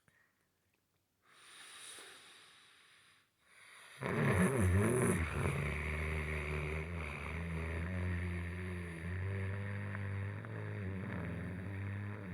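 A person snoring. A near-silent pause and a soft breath give way, about four seconds in, to a sudden loud, long, droning snore that carries on steadily, a pattern typical of sleep apnea.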